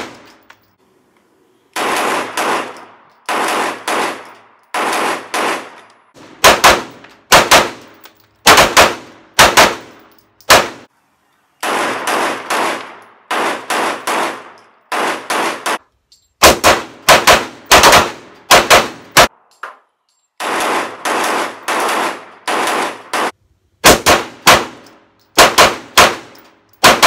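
STI 1911 pistol in 9mm fired shot after shot, roughly one every half second to a second, with a few short pauses between strings. Each shot is sharp with a short ringing tail, and some shots come through louder and crisper than others.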